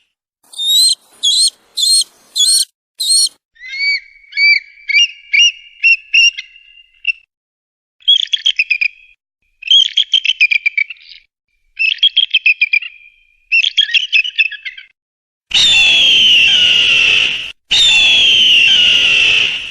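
Eagle calls in a series: five short high-pitched calls, then a run of whistled chirps, then four bursts of rapid chittering, and near the end two long harsh screams, each falling slightly in pitch, the loudest sounds here.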